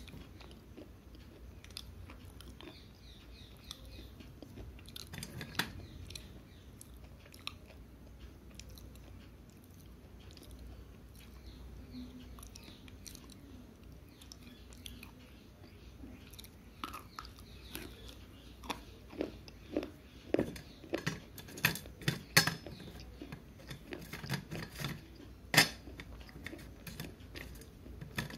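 Slate pencil being bitten and chewed right at a handheld microphone: sharp dry crunches, few and scattered at first, then coming thick and loud through the second half.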